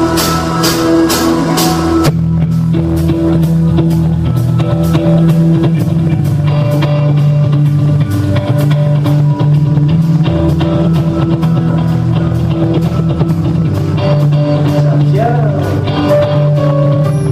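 Live band music with a steady drum beat and sustained guitar and bass notes underneath.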